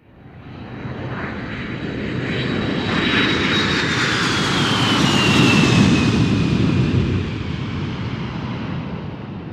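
Airplane flying past: engine noise swells up, peaks a little past the middle and fades away, with a high whine that falls in pitch as it passes.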